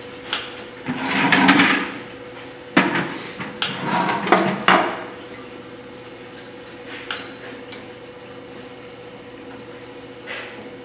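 A hand tool scraping and chattering against a tall clay cylinder turning on a potter's wheel, texturing its surface. It comes in rough bursts during the first five seconds, then goes quieter, over a faint steady hum.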